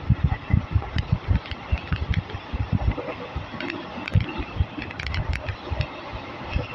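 Running noise of the moving Dadar–Hubballi express passenger train, with a steady hiss under a string of irregular low thuds and scattered sharp clicks and rattles.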